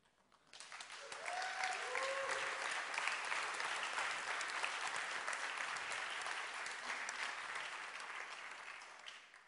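Audience applauding, swelling up quickly, holding steady and tapering off near the end, with a voice briefly calling out about two seconds in.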